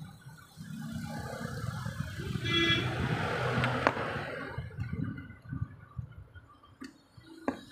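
Low engine rumble of a vehicle running nearby, with a brief high tone a little after two seconds. A few sharp plastic clicks sound near the end as the parts of a car's headlight combination switch are fitted together.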